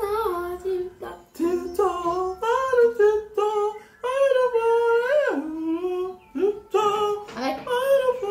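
A high voice singing a slow tune in drawn-out, gliding notes, in a few phrases with short breaths between them.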